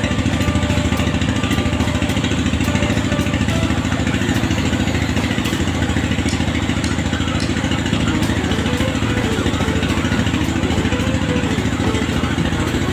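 Truck engine idling steadily, a fast, even low rumble.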